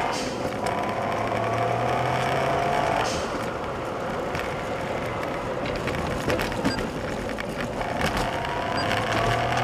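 Suzuki Kei Sport's small turbocharged engine heard from inside the car and sped up to double speed: a rising whine as it pulls, which breaks off about three seconds in with a short hiss from the blow-off valve at the gear change. Steadier running with road noise follows, and the whine rises again near the end.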